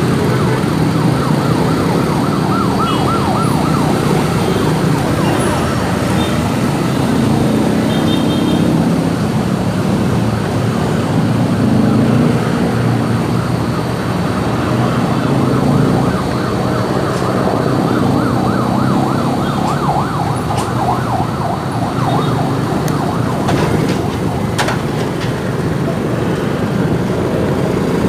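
Onboard sound of a motorcycle in slow rush-hour city traffic: a steady hum of engines and road noise. Over it, a siren warbles rapidly, about a second in for a few seconds and again past the middle.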